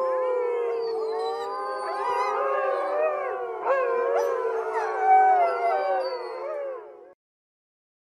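A pack of wolves howling in chorus: several long, overlapping howls at different pitches, with higher, quickly rising and falling yips woven among them. The chorus ends about seven seconds in.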